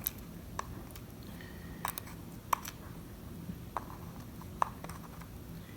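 Faint, sharp clicks, about six of them spread over a few seconds, as small metal lock parts are handled, over a low steady hum.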